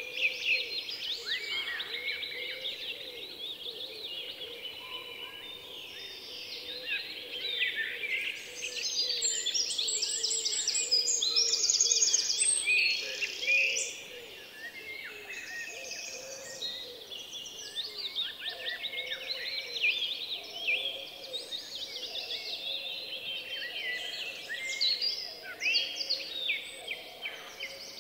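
A dense chorus of many songbirds chirping and trilling together, with no pause. It is busiest and loudest from about nine to thirteen seconds in, with rapid high trills.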